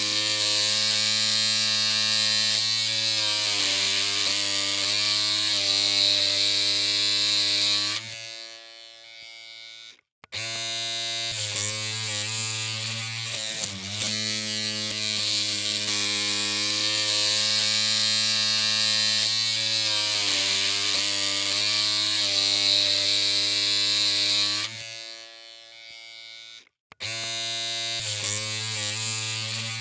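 Electric hair clippers humming with a steady buzz, the pitch sagging briefly now and then. The buzz cuts out about eight seconds in and again near the end, leaving a faint tail and a moment of silence before it starts up again.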